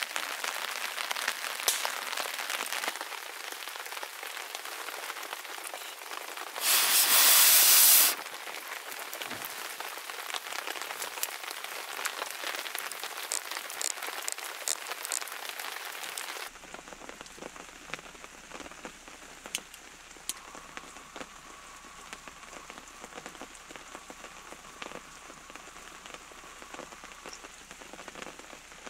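Rain falling, a dense pattering with scattered sharper drop ticks. About seven seconds in, a loud rush of noise lasts about a second and a half. Past the halfway point the rain turns abruptly quieter and thinner.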